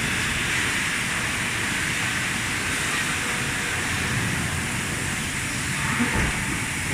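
Steady industrial machinery noise: a continuous hiss over a low rumble, with no distinct strokes.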